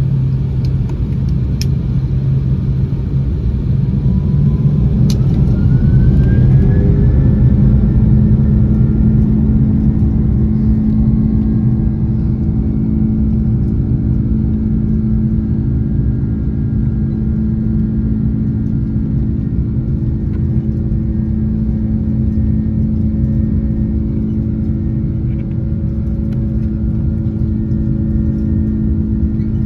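Airbus A330-300's twin turbofan engines heard from the cabin spooling up to takeoff thrust: a rising whine over about four seconds, starting about four seconds in. Then a steady engine whine and low rumble as the airliner accelerates down the runway on its takeoff roll.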